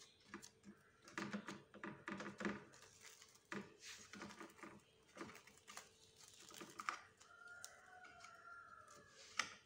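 Plastic cling film crinkling and crackling in soft, irregular taps as hands press, smooth and tuck it over a tray of soft chocolate fudge. A faint held tone sounds for about two seconds near the end.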